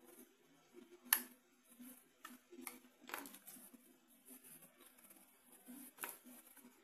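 Faint clicks and taps from hands working a small screwdriver and an aluminium 2.5-inch hard-drive enclosure. There is one sharper click about a second in, then a few more spaced clicks.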